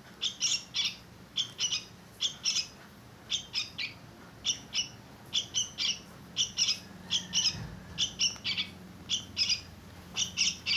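Young fledgling songbirds chirping: short, high chirps, often in quick pairs, repeating about once or twice a second.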